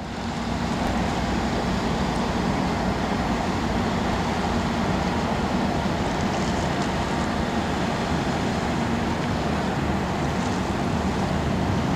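Steady low drone of ferry engines under the rush of water wash and wind on the microphone.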